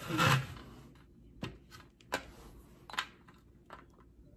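A short breathy rustle, then a few light, separate clicks and taps about a second apart as hemp buds and a jar are handled over a foil tray.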